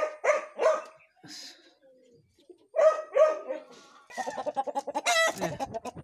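Chickens clucking in short groups of pitched notes, then a faster string of clucks from about four seconds in.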